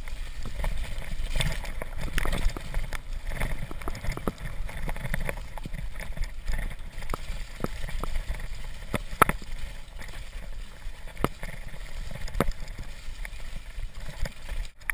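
Mountain bike riding a slushy, muddy snow trail, heard from a handlebar-mounted camera: tyres splashing through wet snow and mud over a low rumble, with the bike rattling and knocking sharply over bumps, the loudest knock about nine seconds in.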